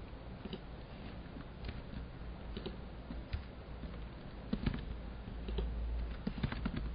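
Computer keyboard keys clicking over a low steady hum: single scattered keystrokes at first, coming faster in the last couple of seconds as a login name is typed.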